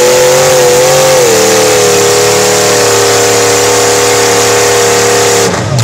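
Lifted mud truck's engine held at high revs at full throttle in deep mud, with a steady high note that dips slightly about a second in and cuts off near the end.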